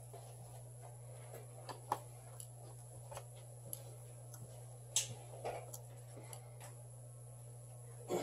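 Scattered light clicks and taps of small tools and phone parts being handled on a repair bench, a handful of irregular ticks with the sharpest about two and five seconds in, over a steady low hum.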